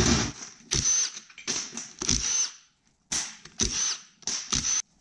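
Cordless power drill driving fasteners out of a snowmobile engine, running in about seven short bursts with a high whine that rises and falls in pitch, and brief pauses between them.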